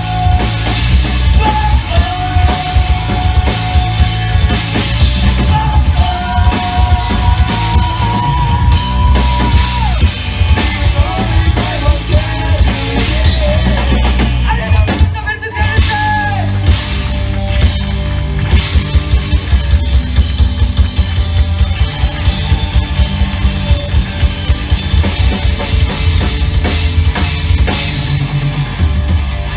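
Rock band playing live: fast, dense drumming over bass and guitars, with long held high notes in the first half and a brief break near the middle.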